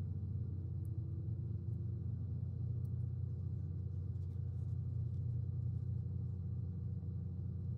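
Steady low hum, with a few faint light clicks of small plastic toy gears and housing parts being handled.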